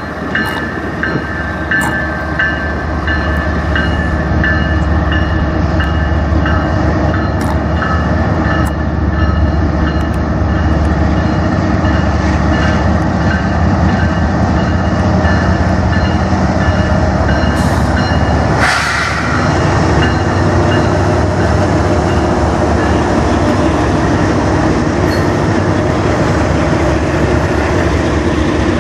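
Two CN diesel freight locomotives pass at speed with their engines rumbling, then loaded covered hopper cars roll by with steady wheel-on-rail noise. High ringing tones sound in the first half, and there is one brief sharp clank or screech about two-thirds of the way through.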